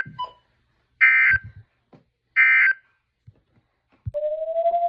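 Emergency Alert System end-of-message data bursts: short, harsh digital SAME code bursts, two of them about a second and a half apart, with near silence between. They signal the end of the tornado warning message. Near the end a single steady tone begins, slowly rising in pitch.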